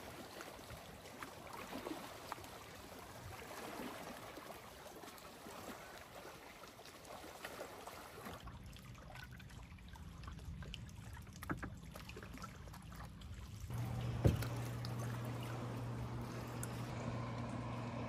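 Water lapping and trickling against a plastic kayak's hull as it glides along, with paddle drips and a few light knocks. A low steady hum comes in a few seconds before the end.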